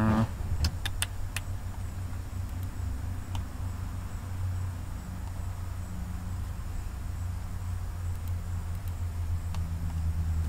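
Several sharp computer mouse or keyboard clicks in the first second and a half, over a steady low hum.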